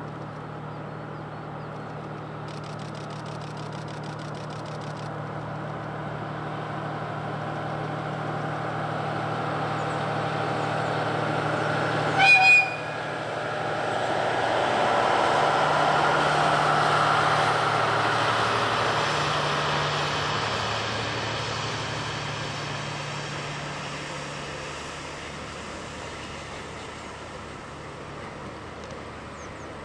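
Diesel train approaching with a steady engine drone, sounding one short horn blast about twelve seconds in, then passing with its loudest running noise a few seconds later and fading away.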